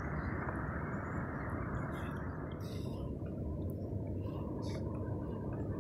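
Wind buffeting the camera microphone on a kayak at sea, a steady low rumble that turns duller about halfway through, with a few faint small splashes of water lapping at the hull.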